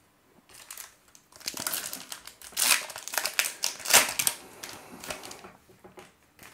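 Trading-card pack wrapper from a 2021 Topps Opening Day pack being torn open and crinkled by hand, a run of crackling rustles starting about a second in, loudest in the middle and fading out about five seconds in.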